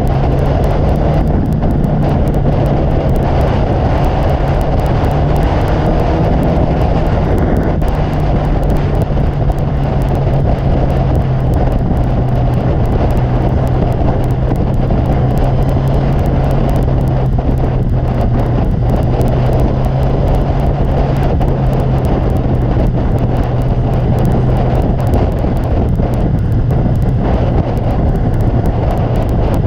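Sport motorcycle engine running at a steady cruise, its low drone dropping slightly in pitch about eight seconds in, under a constant rush of wind on the microphone.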